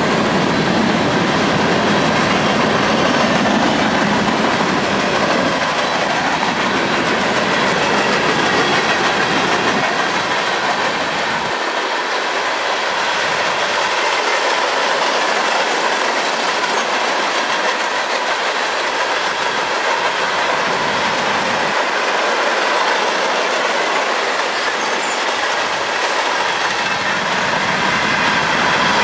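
CSX coal train of hopper cars rolling past: a steady rumble and clatter of steel wheels over the rail, with a thin steady wheel squeal.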